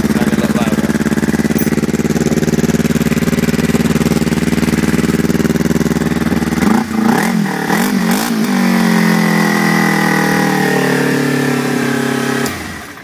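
Kawasaki Ninja 250R's parallel-twin engine running cold through an aftermarket Blueflame titanium oval single-outlet exhaust, idling steadily. About seven seconds in the throttle is blipped a few times so the revs waver up and down, then the idle settles lower, and the engine stops near the end.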